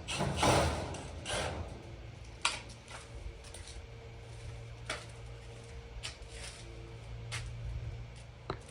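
Handling noises: a short scraping rustle near the start, then a few separate light clicks and knocks, over a low steady hum.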